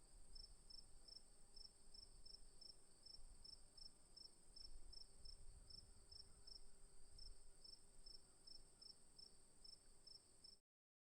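Crickets chirping: a steady high trill under a rhythmic chirp at about three pulses a second, cutting off suddenly near the end.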